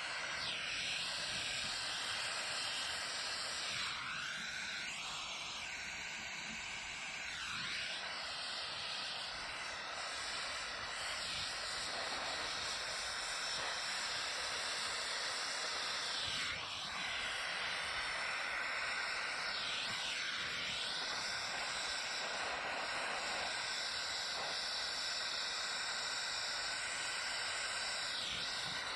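Hose-fed soldering torch flame hissing steadily on a copper pipe coupling, its tone shifting briefly a few times. It marks the sweating stage, with the joint heated while solder is fed in.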